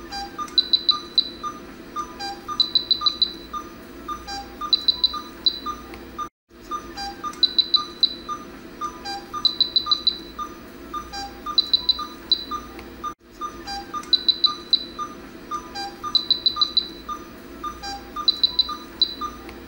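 Background music: a looping track with a steady ticking beat and high, cricket-like chirping trills repeating about every two seconds. It cuts out briefly twice.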